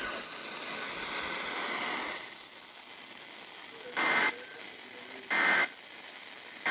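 Radio static hiss for about two seconds, then Emergency Alert System (SAME) end-of-message data bursts: short, harsh digital screeches a little over a second apart. Two bursts come in full, and a third starts right at the end.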